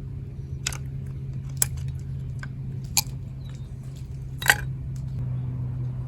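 Four sharp clicks and crunches, a second or so apart, from a hand crimp tool squeezing butt splice connectors onto the cord's wires; the last is the loudest. A steady low hum runs underneath.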